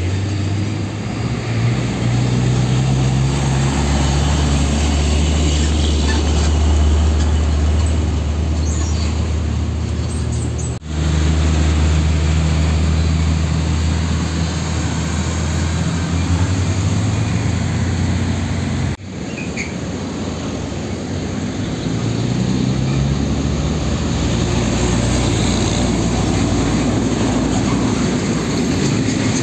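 Heavy diesel trucks driving past at close range, their engines running with a strong low drone: first a Hino Ranger, then a UD Quester tanker, then a tractor-trailer tanker. The sound cuts abruptly about 11 s and 19 s in, where each truck's engine takes over.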